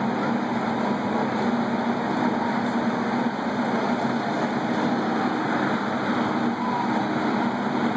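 Fire engine's diesel engine running steadily, under a steady hiss.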